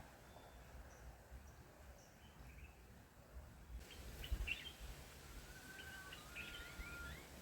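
Faint birdsong: a few short chirps and whistled notes in the second half, over a low rumble.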